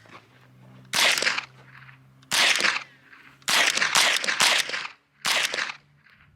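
Chiappa AK-22 semi-automatic .22 LR rifle firing about seven single shots at an uneven pace, each a sharp crack with a short echoing tail. The shots come closer together after the first three.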